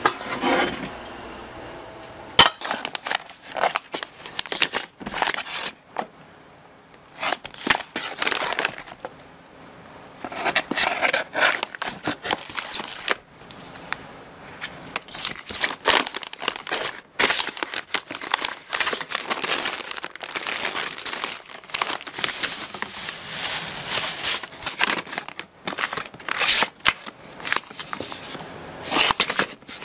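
Plastic and foil food pouches being handled and shuffled, crinkling and rustling in irregular bursts, with a few sharp knocks as items are set down.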